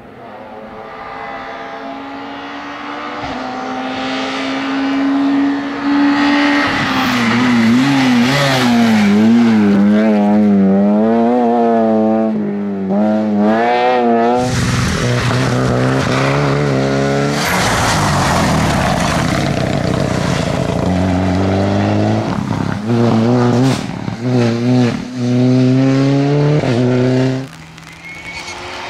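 Rally car engine at full throttle on a stage, revs climbing as it comes closer and then swinging rapidly up and down. Later it runs on a deeper note, broken by several short throttle lifts, and the sound drops away sharply near the end.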